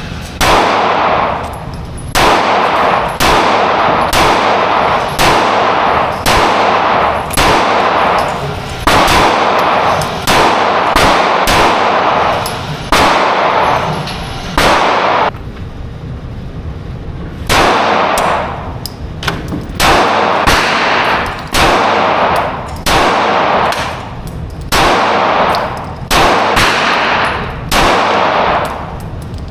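Rapid gunfire in short strings of shots, each string leaving a ringing, clanging tail, with a break of about two seconds around the middle.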